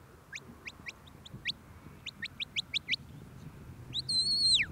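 A sheepdog handler's whistle commands to a working Border Collie: a run of quick rising chirps in two groups, then a long held high note that drops sharply at the end.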